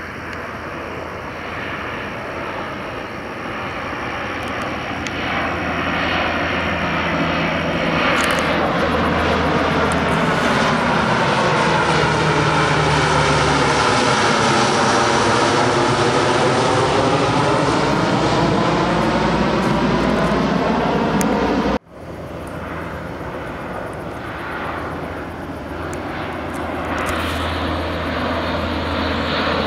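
C-130 Hercules four-engine turboprop droning as it flies past, growing louder over the first several seconds and staying loud, with a sweeping, phasing sound that dips and rises again as it passes closest. About two-thirds of the way in the sound breaks off abruptly, then the drone comes back quieter and builds again.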